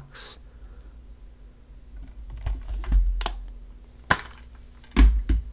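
Clicks and knocks of a metal steelbook disc case being handled and opened, with dull thumps about three seconds in and, loudest, about five seconds in.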